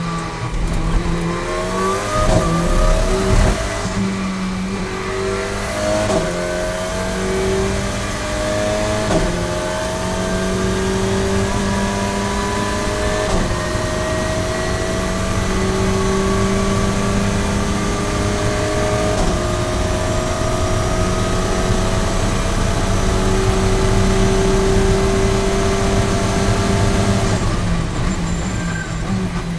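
The Alpine A110 GT4's turbocharged four-cylinder engine, heard from inside the cockpit, accelerating hard under full throttle. The pitch climbs and drops back at each upshift, about six times. The note then holds high and nearly steady at top speed, and near the end it falls away as the driver lifts off for braking.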